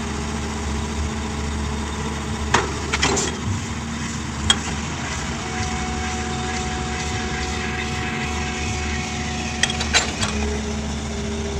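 Diesel engine of a Komatsu PC200 excavator running steadily, with a few sharp knocks in two clusters, about three seconds in and again near ten seconds.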